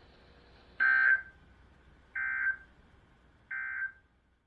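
NOAA Weather Radio EAS end-of-message signal: three short buzzing bursts of SAME digital data a little over a second apart, the first the loudest, marking the end of the alert broadcast.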